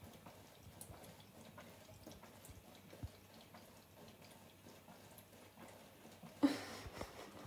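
Faint trickle of a thin stream of tap water falling into a stainless steel sink, with a cat lapping at the stream and a few small drips and ticks. A brief louder noise comes about six and a half seconds in.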